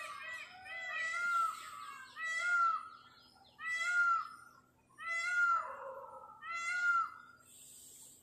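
An animal making repeated meow-like calls, about six in a row, each rising and then falling in pitch, about one every second and a half.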